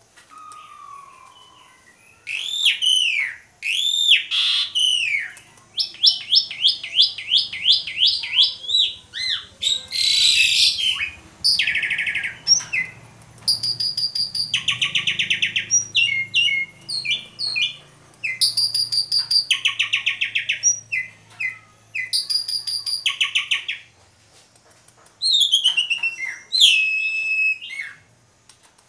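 An Asian pied starling (jalak suren) sings a long, varied song. It mixes loud arched whistles, fast runs of repeated notes and harsh rasping phrases, with a short pause near the end.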